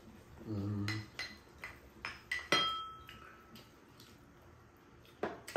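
A metal spoon clinking and scraping against a stainless steel mixing bowl several times, the last strike ringing on briefly, with one more clink near the end.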